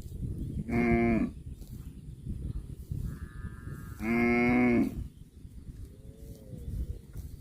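A cow mooing twice: a short moo about a second in, then a longer one near the middle. A fainter, higher-pitched call comes just before the second moo, over a steady low background noise.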